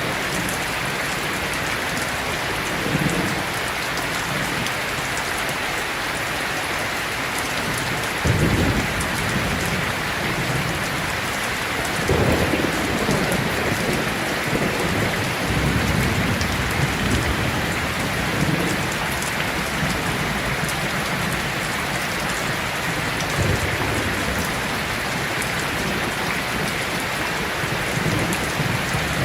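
Heavy rain falling steadily, with rolls of thunder rumbling over it. The loudest begins about eight seconds in, and more follow about twelve and sixteen seconds in.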